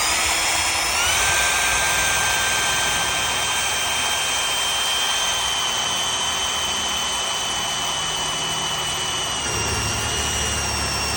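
Electric drill running at full speed, drilling out a metal toolbox lock; the motor whine holds steady, then dips slightly in pitch near the end as the bit bears down.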